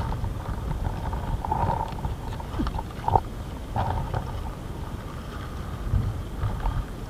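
Handling noise: a plastic raincoat and grass stems brushing and rustling close to a head-mounted camera while set fishing rods are pulled up, with a low rumble and a few sharp knocks, the loudest about three seconds in.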